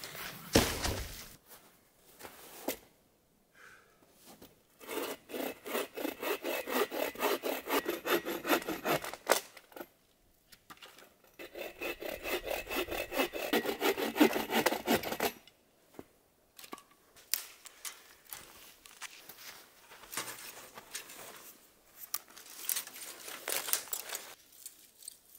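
Hand saw cutting through wood in two bouts of quick, even back-and-forth strokes, each about four seconds long, followed by scattered light knocks and rustles.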